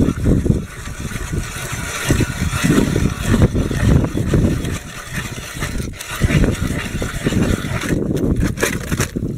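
Hand ice auger drilling a hole through river ice, its blades grinding and scraping through the ice in uneven pulses, with a few sharp clicks near the end.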